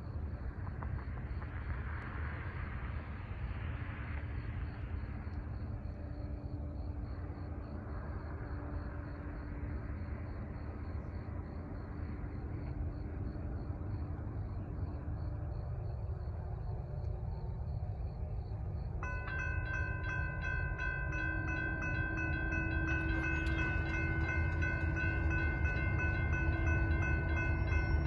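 A steady low rumble, then, about two-thirds of the way through, the railroad crossing's electronic warning bells suddenly start ringing in a quick repeating pattern. A second bell joins a few seconds later as the crossing activates and the gates come down for an approaching train.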